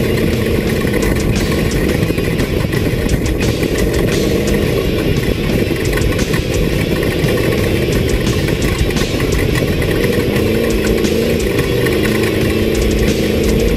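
Off-road race vehicle's engine running steadily and loudly, with frequent rattles and knocks over it.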